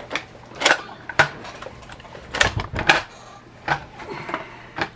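Irregular hard plastic clicks and knocks, about nine in all, from a Nerf Double Punch toy blaster being handled.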